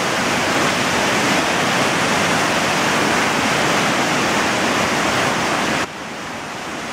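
Dora Riparia river in flood: a steady, loud rush of swollen, turbulent muddy water. It drops suddenly in level near the end.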